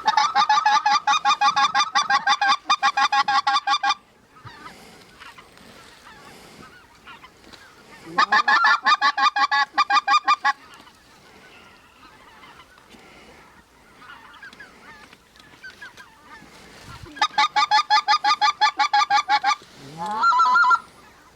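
Goose calling: three long, loud runs of rapid clucks and honks, each lasting a few seconds with quiet between them, and a short rising call near the end. The runs are most likely a hunter's goose call worked at passing geese.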